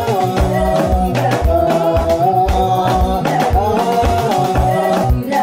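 French-language pop song: a sung lead vocal over a steady bass and drum beat.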